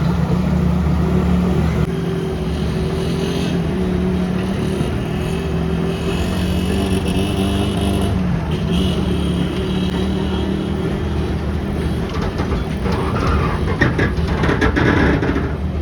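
Passenger train running, with a steady low engine drone and a spell of rattling clatter about 13 seconds in.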